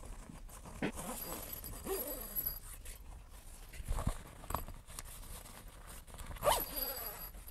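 Zipper on a pop-up truck camper's fabric tent window being pulled open in several short strokes, with the tent fabric rustling; the loudest stroke comes near the end.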